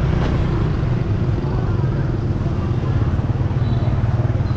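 Street traffic: motor scooters running and passing close by, over a steady low rumble.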